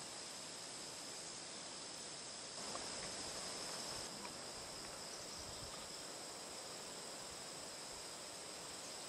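Steady chorus of crickets trilling continuously at a high pitch over a soft hiss, with a brief soft rustle about three seconds in.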